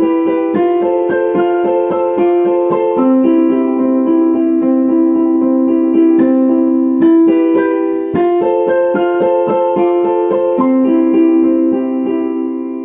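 A piano playing a self-composed tune: quickly repeated struck notes over held lower notes, with the playing tapering off near the end as the piece closes.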